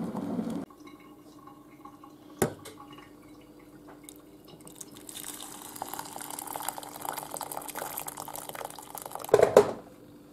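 Boiling water poured from a kettle onto dry rice in a stainless steel pot: a steady splashing pour lasting about four seconds, followed by a loud knock. Before that, a food chopper's whirr cuts off within the first second and a single sharp click is heard.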